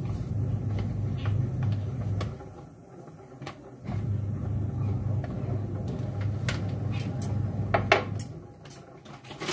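A plastic packet rustling and crinkling in the hands, with a few sharp crackles. Under it runs a steady low hum that drops out about two seconds in and again near the end.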